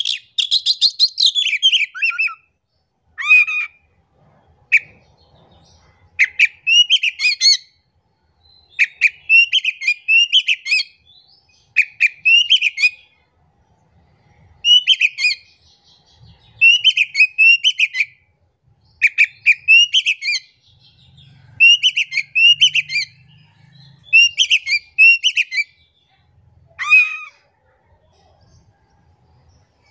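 Oriental magpie-robin singing: loud, varied phrases of whistled notes that swoop down and up, mixed with high sharp chips, one phrase every second or two with short pauses between. The song opens with a dense, rapid run of notes.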